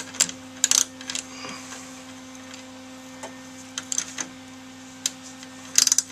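Ratchet wrench clicking in short bursts as it is swung back and forth on a socket, backing out a broken bolt by a nut welded onto it. A steady low hum runs underneath.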